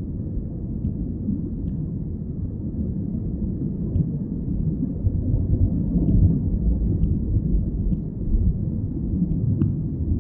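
Low, steady rumble of an airliner heard inside the cabin during takeoff, swelling a little midway, with a few faint ticks and rattles.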